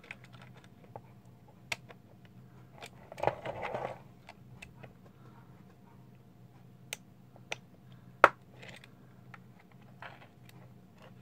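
Plastic case of a cheap universal laptop charger being pried open along its seam: scattered clicks and snaps as its plastic clips give, with a short stretch of crackling and scraping about three seconds in and the loudest snap a little past eight seconds. A faint steady low hum sits underneath.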